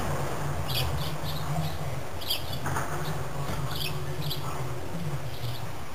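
Small birds chirping in short, high calls, repeated irregularly over a steady low hum.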